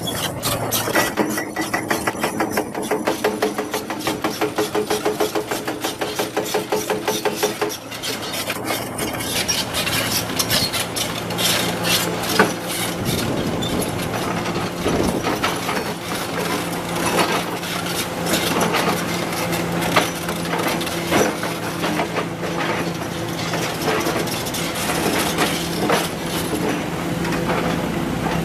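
Komatsu PC200 excavator's diesel engine running with a steady hum, a fast even pulsing for the first several seconds, then irregular clattering, scraping and knocks, typical of the bucket working limestone, from about eight seconds in.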